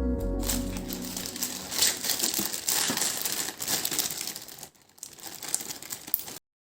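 Crinkling and crackling, like packaging being handled, starting as the background music ends and stopping abruptly near the end.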